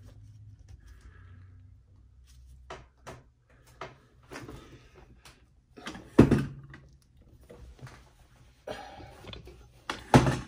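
Scattered clicks and knocks of metal parts being handled on a Singer 500J sewing machine as its top cover comes off and the machine is turned on the table. Two louder knocks come about six seconds in and near the end.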